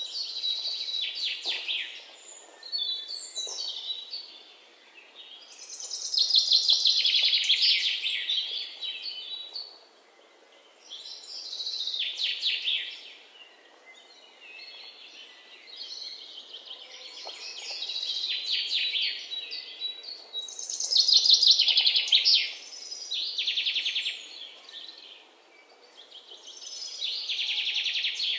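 Birds calling in repeated bursts of rapid, high-pitched trills, each a second or two long, coming every few seconds.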